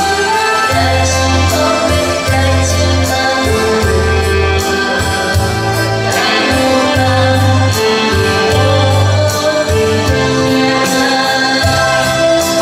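A woman singing a slow song through a microphone and PA, accompanied live by saxophone and an electronic keyboard with a steady programmed beat and bass.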